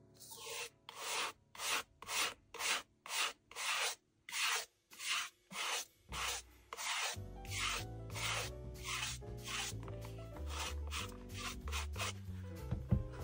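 A suede brush is stroked briskly back and forth over the nap of a suede loafer, making quick hissing strokes about two a second. The strokes grow fainter about seven seconds in.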